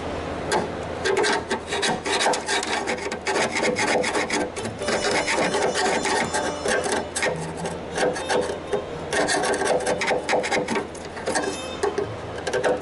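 A hand scraper scraping old seam caulking and rust out of a car's sheet-metal cowl seam, in quick irregular strokes.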